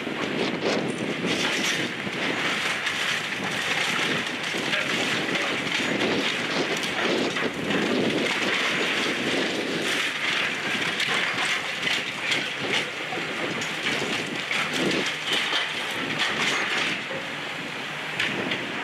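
Brick and masonry cracking and clattering down as a hydraulic excavator's demolition grapple tears apart a brick wall, a continuous crunching rubble noise full of short knocks. It eases off slightly near the end.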